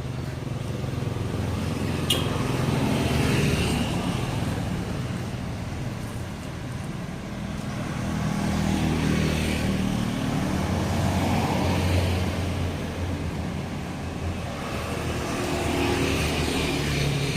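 Road traffic: engine rumble and tyre noise swelling and fading as vehicles go past, about three times, with one sharp click about two seconds in.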